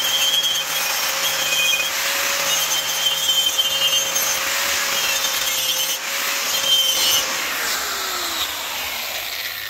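Electric angle grinder running with a steady whine, its abrasive disc scrubbing old RTV sealant off the flange of a steel Jeep differential cover. About three-quarters of the way through the grinder is switched off and the motor winds down in falling pitch.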